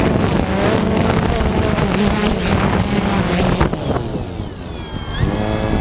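Drone motors and propellers running with wind buffeting the onboard microphone. About four seconds in, as the drone sets down on the roof, the whine falls in pitch and gets quieter, then rises again briefly near the end.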